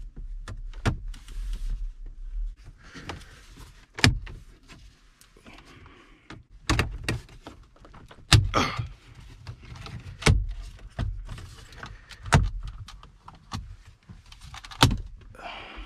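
Plastic retaining clips of a Dodge Durango's centre dash trim bezel clicking and snapping loose as the bezel is pried off with plastic pry tools. There is an irregular string of sharp clicks and snaps, with plastic scraping and rustling between them.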